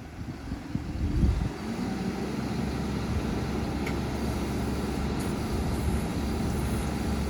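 Engine of a road-rail crane truck, with low knocks and a loud rumble about a second in, then running steadily with a low hum.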